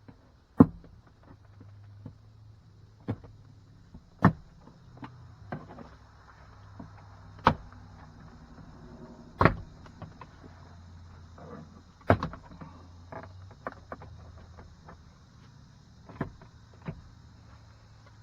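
Plastic push-pin clips of a 2010 Infiniti QX56 interior door panel snapping loose as the panel is pried off with a pocket knife. About eight sharp snaps come at uneven intervals, with smaller clicks and scraping of the plastic trim in between.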